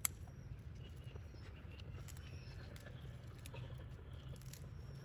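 Scissors snip once through a choy sum stem, a sharp click right at the start. Faint scattered ticks and rustles of the leafy stems being handled follow, over a low steady background rumble.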